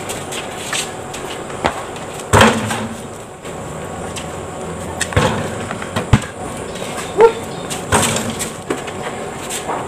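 A basketball bouncing on a concrete court and striking the wooden backboard and rim: irregular sharp thumps, about ten in all. There is also a brief squeak about seven seconds in.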